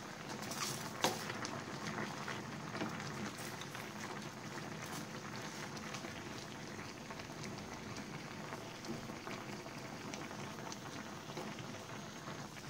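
Fish-and-shrimp sinigang broth boiling in a stainless steel pan: a steady bubbling with small scattered pops and one sharper click about a second in. A wooden spatula presses the bok choy down into the simmering broth.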